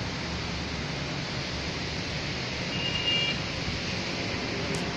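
Steady rain mixed with city traffic on wet roads below, an even hiss with a low rumble of vehicles. A brief high tone sounds about three seconds in.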